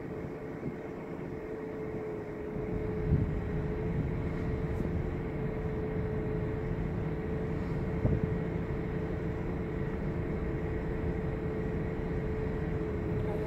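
Car driving slowly, heard from inside the cabin: a steady low road and tyre rumble with a steady hum from the car, and two brief thumps about three and eight seconds in.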